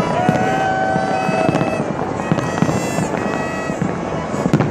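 Aerial fireworks bursting with sharp cracks and crackling, the loudest cracks coming near the end. Held horn-like tones, each lasting about a second at a changing pitch, sound over them.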